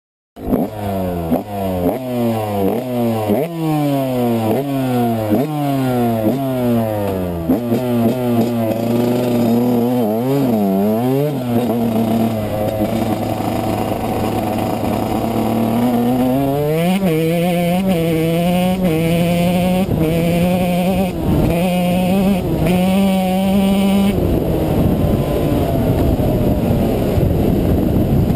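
Yamaha YZ125 single-cylinder two-stroke dirt bike engine under way, heard from the rider's helmet: it revs up and drops back again and again through the gears for the first eight seconds or so, then runs at a steadier pitch with short throttle blips.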